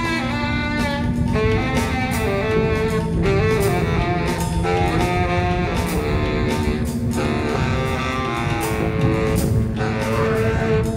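Improvised jazz music: a saxophone holds and shifts between sustained notes over irregular percussion hits.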